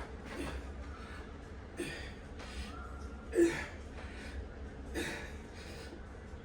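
A person's forceful breaths during exercise repetitions, a short gasping exhale about every second and a half, the loudest about halfway through, over a steady low hum.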